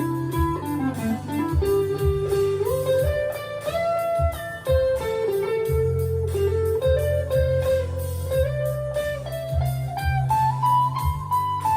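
Rockburn Strat-style electric guitar played through a small valve amp: a single-note lead melody with pitch bends and slides, over a steady low note underneath.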